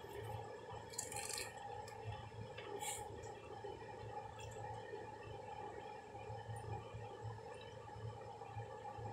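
Steady hum of a window air conditioner running. Two short hissy noises come about one and three seconds in.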